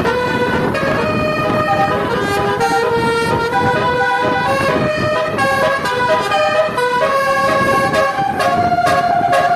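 Basuri (telolet) musical air horn on a bus playing a quick melody, the notes stepping up and down one after another without a break, over a rough low noise.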